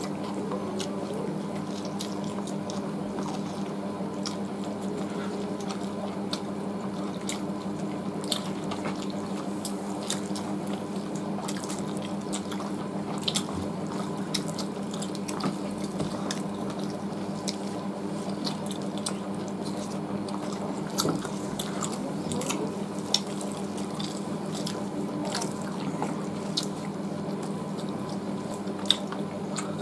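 Two people eating whole roast chicken and rice with their hands: wet chewing and lip-smacking clicks, scattered irregularly, over a steady low hum.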